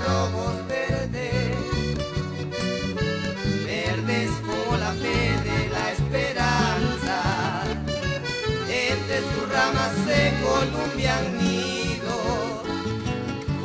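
Recorded song with the accordion playing the lead melody over guitars, bass and cajón, keeping a steady beat.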